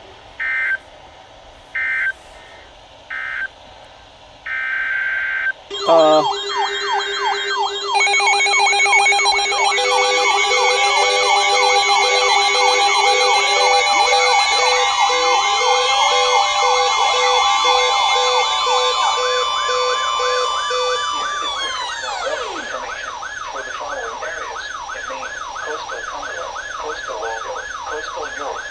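Electronic alert tones: four short beeps, then many overlapping electronic siren and alarm tones, fast yelping sweeps, slower wails and steady tones. About 22 seconds in, most of the tones slide down in pitch together and stop, leaving a quicker repeating warble.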